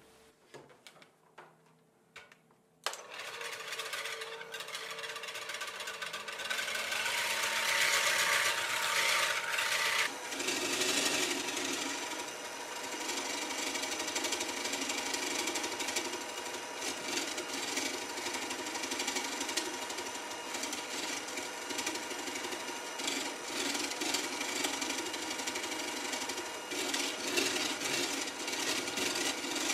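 Electric hand mixer with a whisk beater switched on about three seconds in, whipping cold liquid cream in a plastic bowl. It runs steadily, loudest for a few seconds and then settling a little about ten seconds in.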